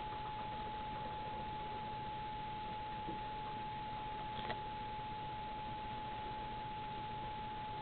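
A steady high-pitched whine over a background hiss, with a faint click about four and a half seconds in.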